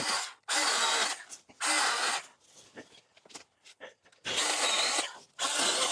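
Stihl battery-powered mini pruning chainsaw running in four short bursts of about half a second each, cutting through overgrown brush.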